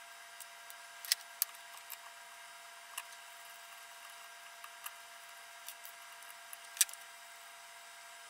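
Small clicks and taps of hands handling a drum sander's controller box and its wiring, a scattering of separate clicks with the sharpest about a second in and late on, over a faint steady hum.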